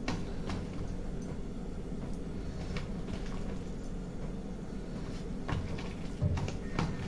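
Hand mixing gram-flour batter in a steel bowl: soft squishing with scattered light clicks and a few low knocks over a steady low hum.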